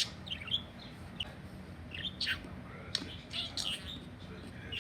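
Pet budgerigars chirping, with short high chirps and warbles scattered through, over a faint steady low hum.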